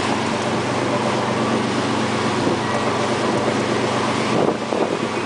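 Boat engine running steadily with a low hum while the boat is under way, over the rush of churning wake water.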